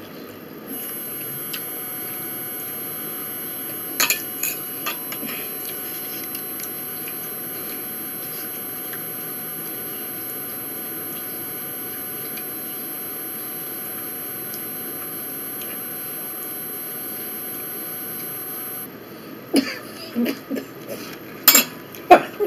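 A steady mechanical hum with faint whining tones, from a running room appliance, starts about a second in and cuts off after about eighteen seconds. Light clicks come about four seconds in, and near the end a cluster of sharp knocks and clatters of dishes being handled on a wooden table is the loudest sound.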